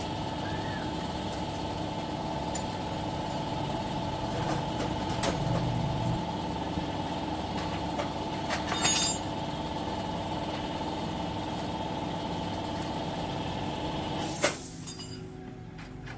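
A machine running with a steady, even hum, cut off by a short loud burst near the end, after which only a quieter background remains.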